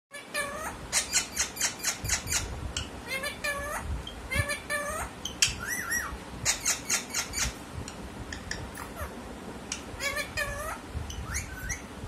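Rose-ringed parakeet vocalizing in short bursts of quick, high notes, a string of bursts with short gaps between them.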